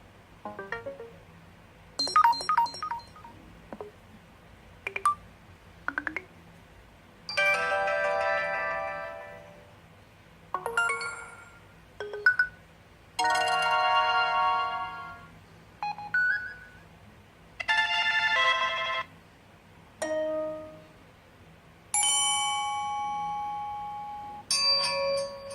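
HTC Desire 601 smartphone's built-in ringtones and alert tones played one after another: about a dozen short chimes and jingles, each lasting up to about two seconds, with brief pauses between them.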